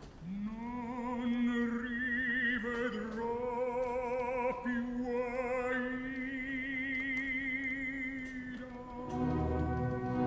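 Operatic tenor singing solo, long held notes with a wide vibrato and almost nothing under him. Low orchestral strings come in near the end.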